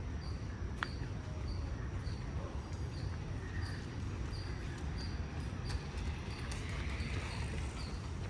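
Outdoor park ambience: a short, high chirp repeats evenly about twice a second over a steady low rumble, with a few faint sharp clicks.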